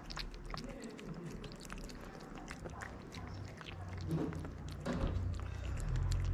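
Two cats eating wet cat food from a plate: a quick run of small clicking chewing and lapping sounds. A low steady hum comes in about halfway through and grows louder toward the end.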